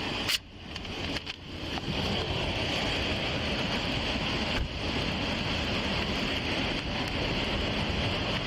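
Steady rushing noise of wind and road traffic at the roadside. A sharp click comes just after the start; the noise then dips and builds back over about a second and a half. A fainter click comes near the middle.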